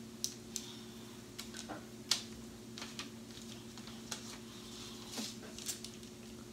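Knife cutting a rolled-out sheet of cheese-based keto dough into strips on parchment paper over a wooden cutting board: light irregular clicks and taps of the blade against the board, a dozen or so, the sharpest about two seconds in. A faint steady hum runs underneath.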